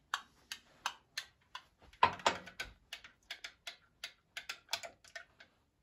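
A small utensil stirring warm milk in a glass to dissolve fresh yeast, clinking against the glass about three times a second. There is one louder knock about two seconds in.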